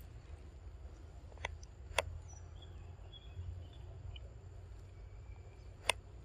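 A macaque eating: a few sharp clicks as it bites and handles small pieces of food, over a steady low rumble, with faint high chirps in the middle.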